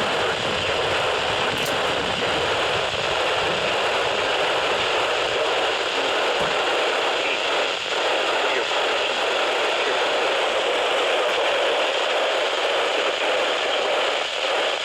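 Steady radio static hiss from a receiver.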